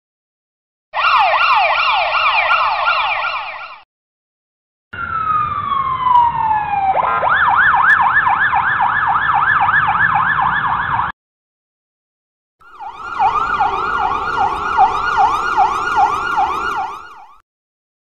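Ambulance sirens in three separate bursts with short silences between, starting about a second in. Each burst is fast repeating pitch sweeps, several a second; the middle burst opens with a long falling glide, then switches to the fast sweeps.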